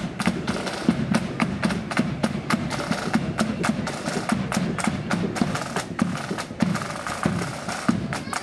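Marching band drum corps beating a steady marching rhythm: rapid crisp side-drum strokes over regular low bass-drum thuds.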